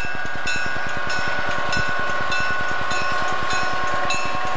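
Southern Pacific GE U25B diesel locomotive running past, its engine pulsing rapidly, while its bell rings steadily with a strike a little under twice a second.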